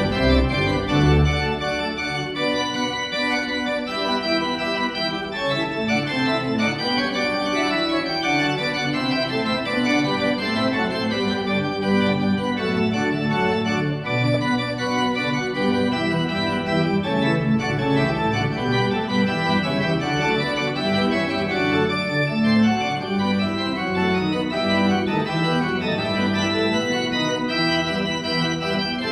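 Pipe organ playing continuous music: many sustained notes sounding together over a bass line.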